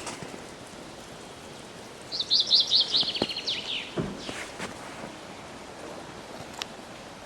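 A small bird sings one quick trill of rapid high notes lasting about a second and a half, dropping in pitch at its end, over a steady background hiss. A few short clicks come before and after the song.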